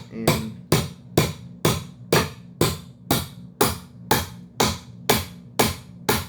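A steady run of sharp strikes, about two a second, over a faint low steady hum.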